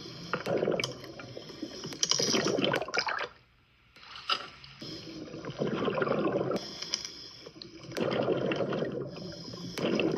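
Scuba diver breathing through a regulator underwater: bursts of exhaled bubbles come every couple of seconds, with quieter gaps between.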